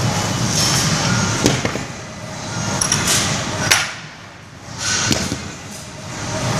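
Background din of a large weight room: a steady low hum with a few sharp knocks, the loudest about halfway through.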